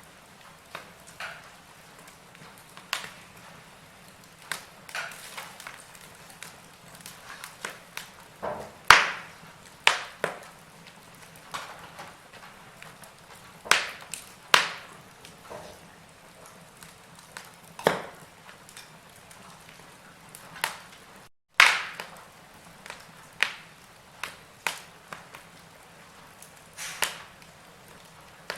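Wood fire of burning logs crackling, with irregular sharp pops and snaps from a couple to several every few seconds over a faint steady hiss. The loudest pops come about nine seconds in and again a little after twenty seconds.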